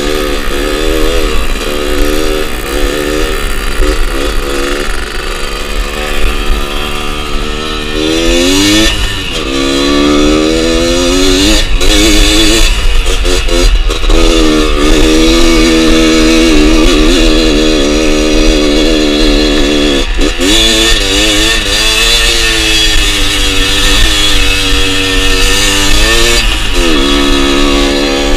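Small trail motorcycle's engine running under the rider, its pitch rising and falling over and over as the throttle opens and eases off, climbing steeply about eight seconds in.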